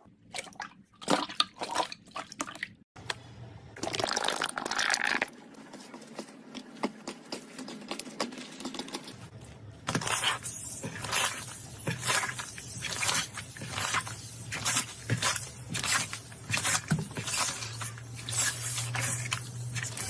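Slime being squished and pressed by hand, making wet clicking pops and squelches. From about halfway in, the presses fall into a regular rhythm of about two a second.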